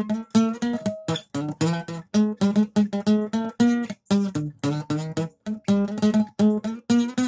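Acoustic guitar strummed in short, choppy chords, three or four a second, each cut off quickly before the next.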